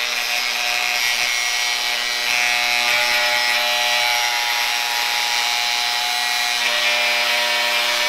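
Cordless angle grinder cutting steel plate with a deliberately damaged cutoff disc: a steady, unbroken grinding hiss over a constant motor whine. The damaged disc holds together.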